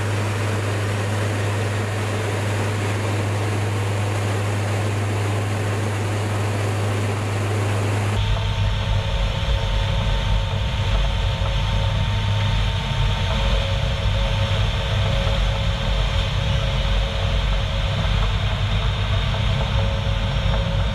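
Inside a C-130 Hercules cargo hold in flight with the rear ramp open: the steady loud drone of its four turboprop engines mixed with rushing air. About eight seconds in the sound shifts to a deeper rumble with a steady higher whine over it.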